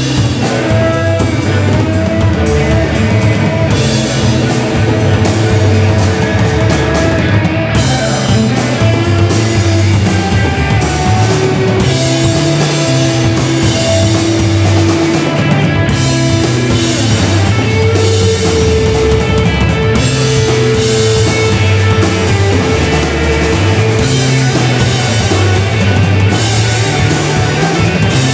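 Live rock band playing loudly, with electric guitars, bass guitar and drum kit; a Telecaster-style electric guitar plays sustained notes over the rhythm section.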